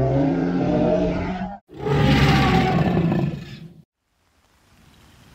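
Two Tyrannosaurus rex roars from a designed dinosaur sound effect, each about two seconds long: the first with a wavering, pitched tone, the second rougher and noisier. After a short silence, a faint hiss rises near the end.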